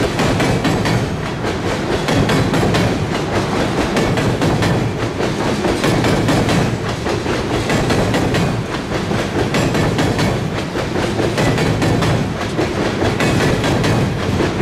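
Empty steel-wheeled coal cars rolling past over a girder bridge: a steady heavy rumble with a continual rapid clicking and clacking of wheels over the rail.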